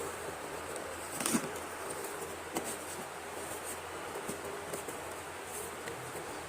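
A few light, scattered clicks and crackles from slate pencils and their packets being handled, over a steady low hum. The sharpest click comes about a second in.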